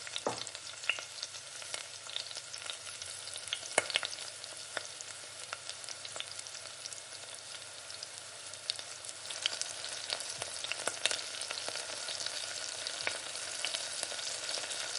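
Food frying in oil in a pan: a steady sizzle with frequent sharp crackles and pops of spitting fat.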